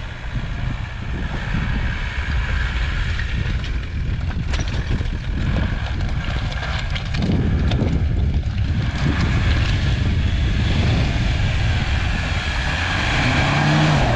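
VW T3 Syncro van's engine running as it crawls over a rocky gravel track, with stones crackling under the tyres; it grows louder as the van comes closer.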